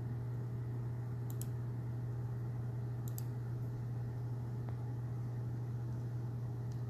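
Steady low hum with no speech, and two faint short clicks, about a second and a half in and about three seconds in.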